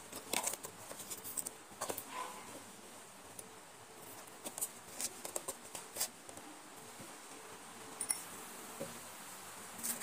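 Scattered light clicks and taps of small household objects being handled, over a faint steady hum.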